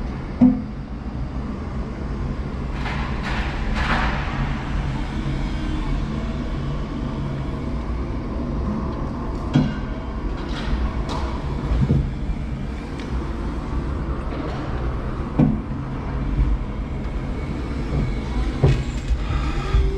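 5-ton electric forklift truck running, heard from its cab: a steady low hum with a few sharp knocks and clunks as it handles the load.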